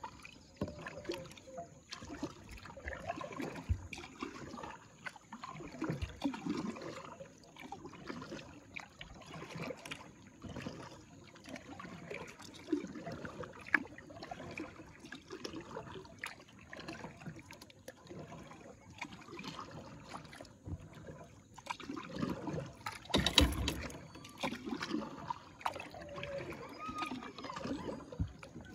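Kayak paddle strokes in calm lake water: irregular dips, drips and small splashes and trickles. One louder thump about three-quarters of the way through.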